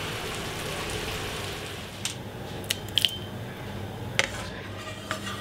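Kitchen utensils clinking against a cooking pan: a handful of sharp knocks, one about three seconds in with a short metallic ring, over a faint steady hiss from the pan.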